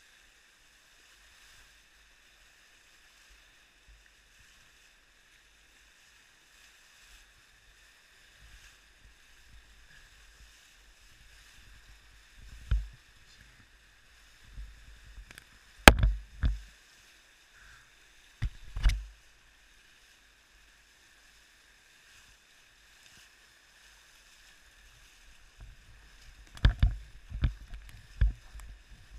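Whitewater rapids rushing steadily around a playboat kayak. Heavy low thumps of waves and spray slap the boat and the camera several times, loudest about halfway through, with a quick cluster near the end.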